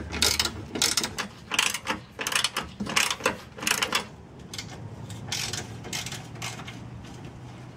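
Socket ratchet wrench clicking in short runs as it turns out a headlamp mounting bolt, dying down about halfway through.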